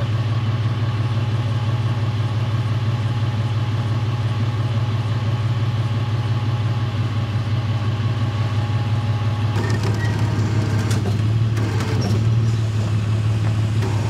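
A vehicle engine running steadily with a low hum, joined by a few clicks and clattering knocks from about ten seconds in.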